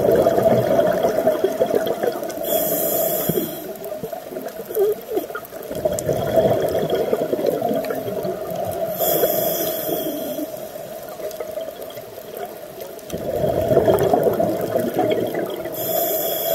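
Scuba diver breathing through a regulator underwater. A short high hiss comes on each inhale, three times, about six seconds apart, and each is followed by a few seconds of gurgling exhaled bubbles.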